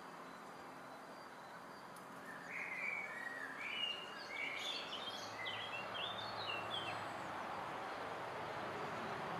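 A songbird singing a quick run of short, high chirps from about two and a half seconds in until about seven seconds, over steady outdoor background noise.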